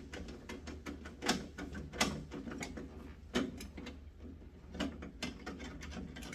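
Irregular clicks and knocks of hand tools and parts being handled inside an ice machine as a wire is worked off its connection. A steady low hum runs underneath.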